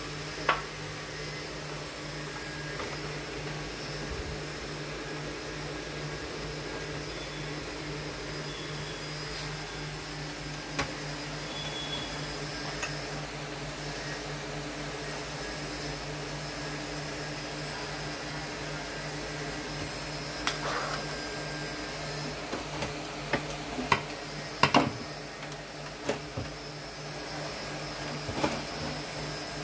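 A steady low hum with a constant machine-like noise behind it. Over it are scattered clicks and knocks, most of them in the last third, as wire connectors are unplugged and a circuit board is worked loose from the opened Sony LBT-ZUX10D mini hi-fi.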